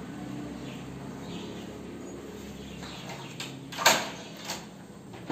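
A few sharp clicks and knocks at a wooden door with a metal lever handle, the loudest about four seconds in with a short ring, over a low steady hum that drops away about three seconds in.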